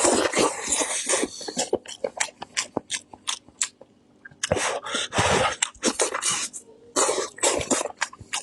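Close-miked wet chewing, smacking and slurping of a person eating meat, in irregular clusters with a run of sharp lip clicks in between.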